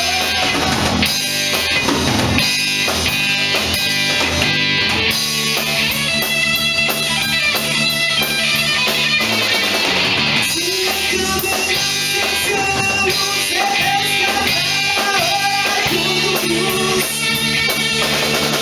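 Rock band playing an instrumental passage: guitars over a steady drum kit beat.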